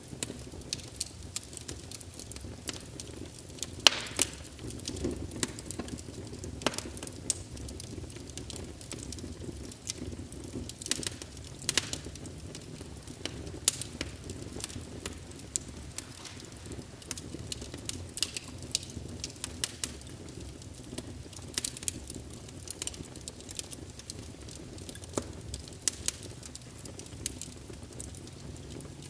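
A fire burning: a steady low rush of flame under frequent irregular sharp crackles and pops, with one louder pop about four seconds in.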